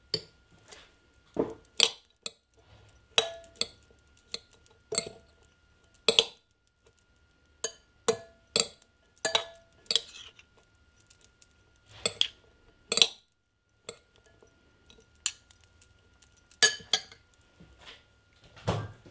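Metal fork and spoon clinking and scraping against a ceramic bowl while tossing zucchini noodles: irregular clinks, roughly one a second, some ringing briefly.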